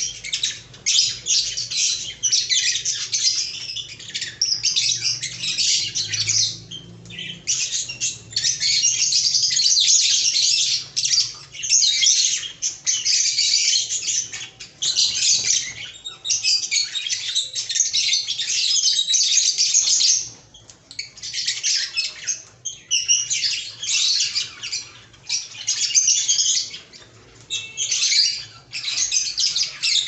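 A flock of caged lovebirds chattering and squawking, a dense, high-pitched shrill calling that comes in bursts with brief gaps.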